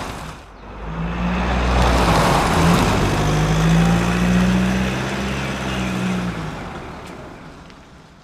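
A large truck's engine running as the truck drives past, growing louder over the first second and then fading away over the last few seconds.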